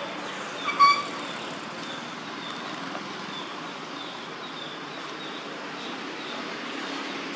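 A young macaque gives one short, high squeak about a second in. Behind it runs a steady outdoor background with a faint high chirp repeating about twice a second.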